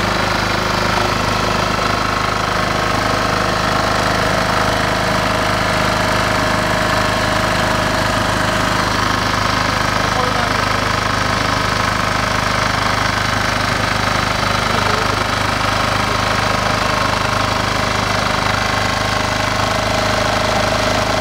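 Engine of a small farm machine running at a steady speed, one even, unchanging drone.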